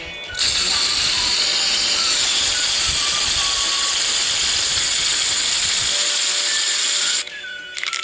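Background music overlaid by a loud, steady hiss that starts just after the beginning and cuts off suddenly about a second before the end.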